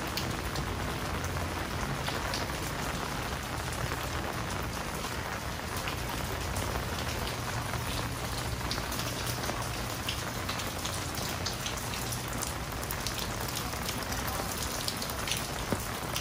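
Heavy rain falling on wet paving and rooftops: a steady hiss with many sharp drop hits scattered through it.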